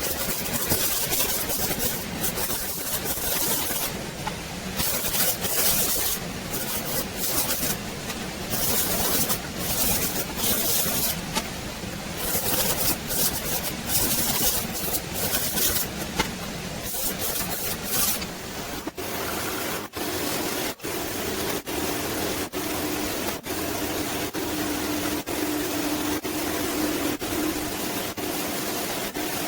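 Sped-up metalworking workshop noise: a hissing, rasping din chopped by many abrupt cuts, with a steady hum joining about two-thirds of the way through.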